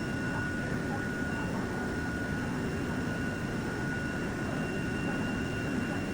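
Steady machine-shop drone from running CNC machinery, a constant hum with a thin high whine held at one pitch throughout.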